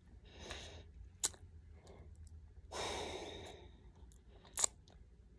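A woman breathing: a short soft breath about half a second in, then a long sigh about three seconds in, with two brief sharp clicks between and after.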